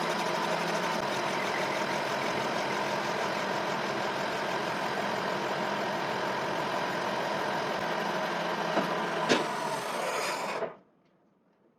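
General-purpose engine lathe running steadily with a whine, with two sharp clicks near the end before the sound cuts off suddenly.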